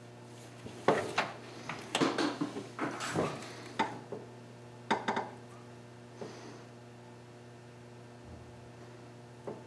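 Metal parts and tools clinking and knocking against each other as they are handled, a busy run of sharp clinks in the first half and a few single clinks later, over a steady low electrical hum.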